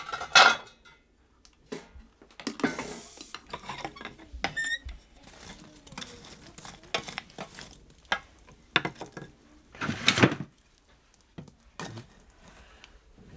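Kitchenware clattering: dishes, pots and cutlery knocking and clinking at irregular intervals, with a louder clatter about ten seconds in.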